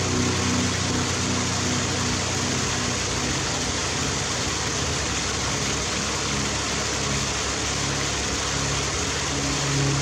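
Waterfall: white water pouring over rocks into a pool, a steady, even rush. A low hum sits underneath, clearer at the start and again near the end.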